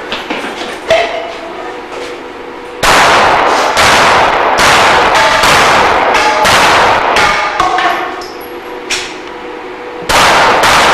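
Pistol shots fired in quick succession, a long string of them about two a second, with steel plate targets ringing as they are hit. After a pause, two more shots come near the end.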